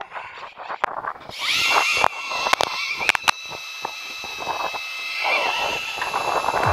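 Electric fishing reel's motor whining steadily as it winds in line on a hooked fish, starting about a second and a half in, with a few sharp clicks in the middle.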